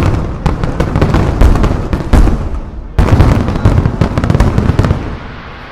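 Rapid barrage of aerial firework shells bursting, with many cracks and booms overlapping. A fresh loud volley comes about three seconds in, and the bursts die away about five seconds in.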